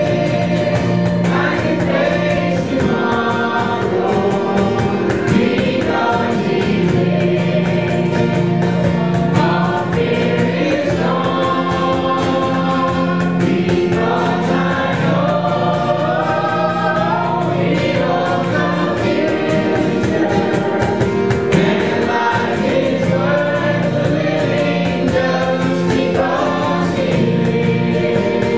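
A worship song sung by a man and a woman into microphones over a strummed acoustic guitar, continuous throughout.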